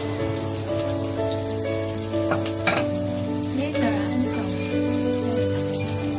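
Garlic, ginger and a cinnamon stick sizzling in hot oil in a pot, with soft background music of held notes underneath. Two sharp clicks about halfway through.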